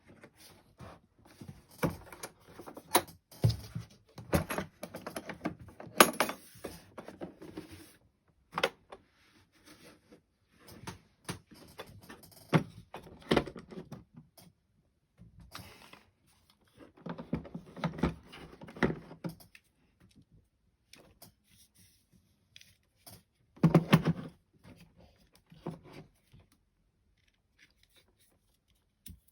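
Hard objects being handled: irregular clatter, clinks and knocks in bursts, with the sharpest thunks about six seconds in and again near twenty-four seconds. No motor is running.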